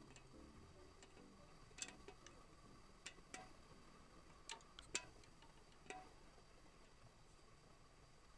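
Near silence with a few faint, irregular clicks and taps, about six over several seconds, as of small hard PC parts being handled.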